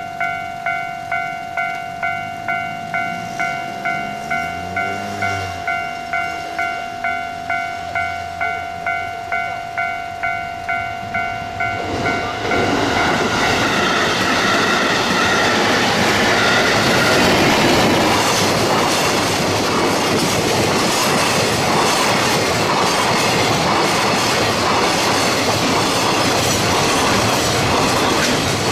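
A Japanese level-crossing warning bell rings steadily about twice a second. About twelve seconds in, an EF210 DC electric locomotive and its container freight train pass close by. Loud wheel rumble and clickety-clack over the rail joints take over and drown out the bell.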